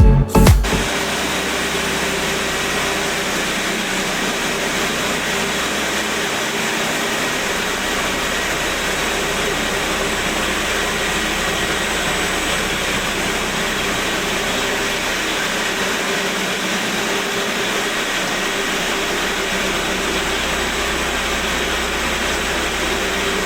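Concrete floor-prep machinery running steadily: a constant, even mechanical noise with a faint steady whine, as old epoxy coating is ground off the concrete.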